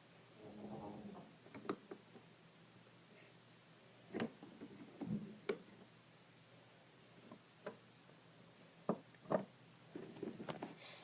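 Scattered light clicks and taps of small plastic toy figures and playset pieces being handled and set down, a few sharper knocks among them.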